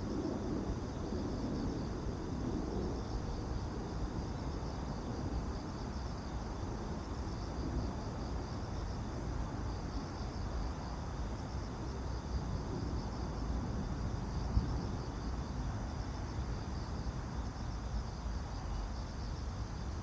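A steady chorus of singing insects, a continuous high pulsing trill, over a low rumble. A single brief click about two-thirds of the way through.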